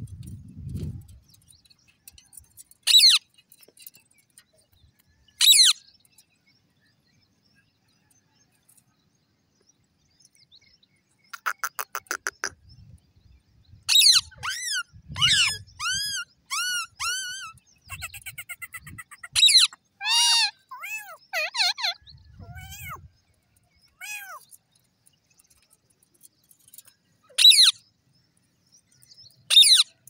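Indian ring-necked parakeets calling: several sharp, shrill screeches that sweep down in pitch and come a few seconds apart. In the middle comes a stretch of rapid chattering and quick arched chirps.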